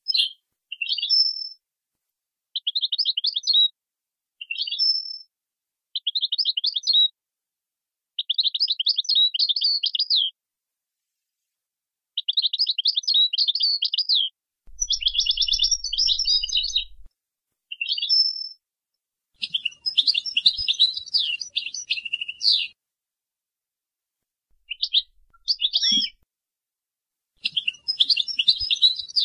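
European goldfinch singing in the Moroccan Boujaad 'wedania' style: a string of short phrases of quick, high twittering trills, each half a second to three seconds long, separated by silent gaps.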